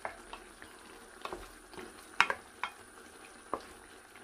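Pata humba (pork hocks in a soy braising sauce) simmering in a stainless steel pot, with a low bubbling hiss and scattered sharp pops, the loudest about two seconds in. The sauce is reducing down to a thick glaze.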